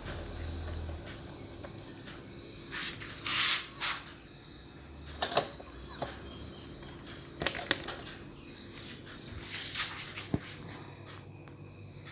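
Hands handling toaster parts and tools: scattered clicks and light knocks with several brief scraping, rustling sounds, the longest about three seconds in.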